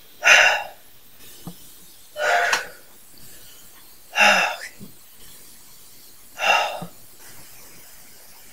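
Four short, breathy vocal outbursts about two seconds apart, each about half a second long, over faint background hiss.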